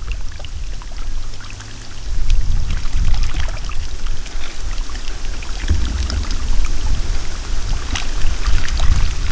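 Water splashing and trickling, with many small sharp splashes over a heavy, uneven low rumble.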